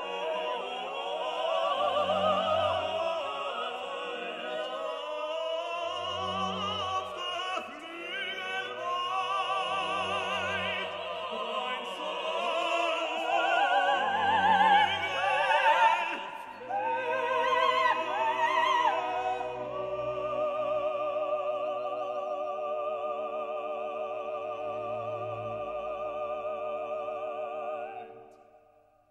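Operatic singing over an orchestra, with a low beat about every two seconds in the first half. After about seventeen seconds it settles into long held notes sung with vibrato, which fade out near the end.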